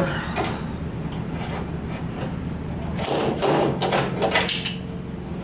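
Body filler being spread over a VW Beetle door's steel skin with a spreader: several scraping strokes beginning about three seconds in, over a low steady hum.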